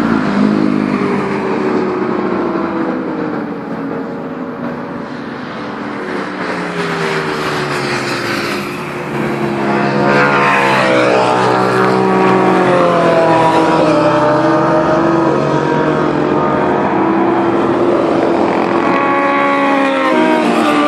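Motorcycle engines revving hard as the bikes ride past, pitch rising and falling through the gears. It grows louder about halfway through, where a pass drops in pitch, and stays loud after that.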